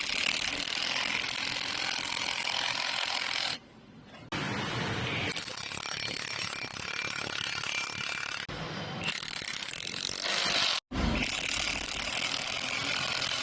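Fastener-making factory machinery running with a dense mechanical clatter, heard in several short clips joined by abrupt cuts.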